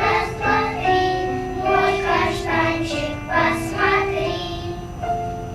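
Children's choir singing a song with accompaniment, its final phrase dying away near the end.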